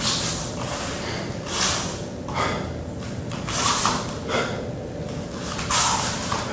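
A performer's loud, forceful breaths, one about every two seconds, as he moves.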